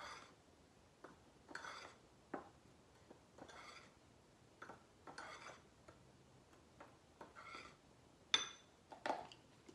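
Spoon stirring dry flour, baking powder and salt in a bowl, with faint scrapes and clicks against the bowl about once a second and a sharper click near the end.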